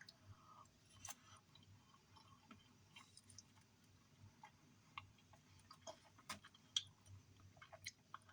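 Faint, irregular clicks and smacks of someone eating.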